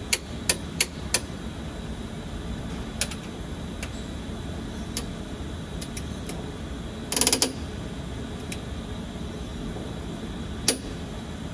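Scattered sharp metallic clicks from hand tools, and about seven seconds in a short run of rapid ratchet-wrench clicks, over steady background noise.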